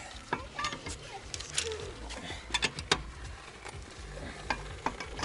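Irregular metallic clicks and clinks of a hand wrench tightening bolts on a car's wheel/brake assembly, with a cluster of sharper clicks about two to three seconds in.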